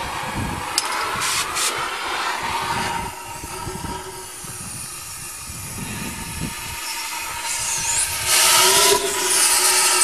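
Oxy-acetylene cutting torch flame hissing steadily, with a few clicks early on. About eight seconds in it turns much louder and harsher with a whistling tone as the torch cuts a slit in the worn rear axle bearing race inside the cast iron axle housing.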